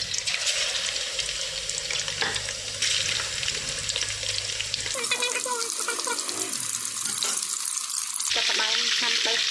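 Slabs of pork belly frying in oil in a metal wok: a steady sizzle whose level jumps at a few cuts, with a low hum dropping away about five seconds in.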